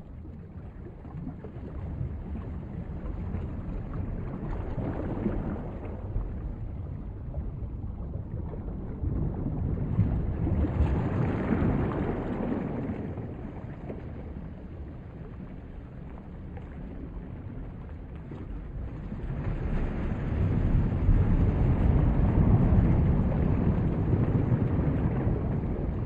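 Ocean surf: a steady rush of waves that swells and fades slowly several times, loudest about two-thirds of the way through.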